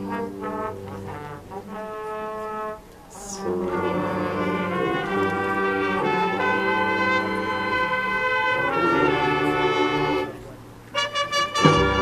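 High school marching band playing: brass chords with percussion. After a short break about three seconds in, marked by a brief crash, the band swells into a long, loud held chord. It drops away near the end, then short punchy accented hits begin.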